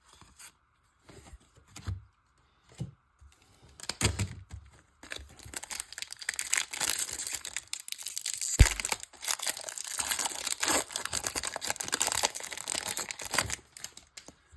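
A foil Pokémon booster pack wrapper being torn open and crinkled, after a few brief handling noises, with one sharp thump partway through.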